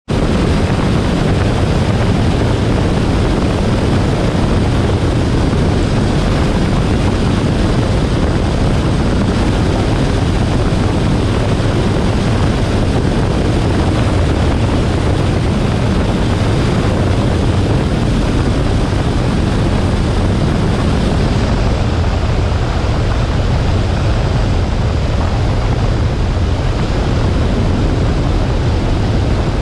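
Luscombe light airplane's engine and propeller running steadily in flight on approach to land.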